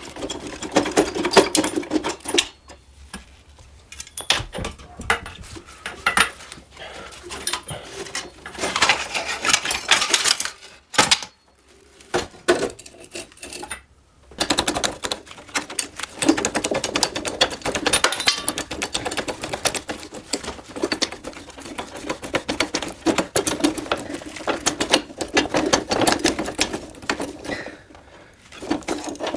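Quick runs of clicking and clattering from metal parts and hand tools as the Riga 12's front fork, handlebar clamp and headlamp are handled and fitted. The clicks come in bursts with a few short pauses between them.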